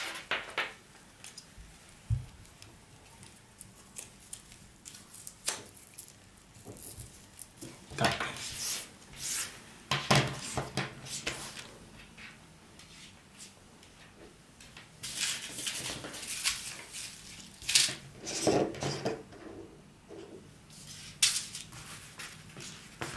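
Handling of a wireless microphone kit's accessories and packaging: scattered clicks, light knocks and rustles, in clusters with quiet stretches between.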